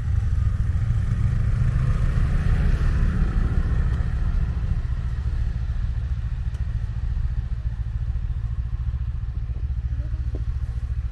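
Snowmobile engines running: a steady low engine rumble close by, with a swell of engine noise about two to three seconds in as the machines head off across the ice.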